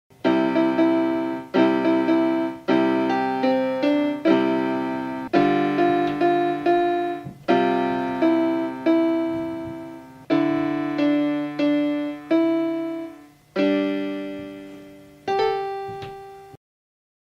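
Casio SA-76 keyboard's built-in piano sound playing a slow chordal passage through a small JBL Bluetooth speaker plugged into its headphone jack. Chords are struck about once a second, each fading before the next.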